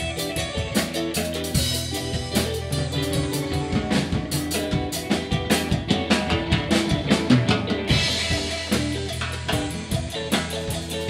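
Live rock band playing an instrumental passage: a drum kit with fast, busy hits, electric guitar and electric bass. A cymbal wash comes in about eight seconds in.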